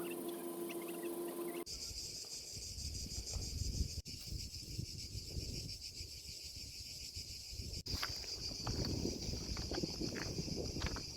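A steady, high-pitched insect chorus buzzes, with wind rumbling on the microphone underneath. A steady low hum fills the first couple of seconds before the insects come in, and the sound breaks off sharply at edits about 4 and 8 seconds in.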